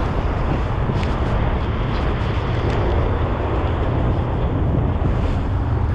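Knit fabric rubbing against the camera microphone while wind buffets it, giving a steady low rumble with a rustling hiss over it.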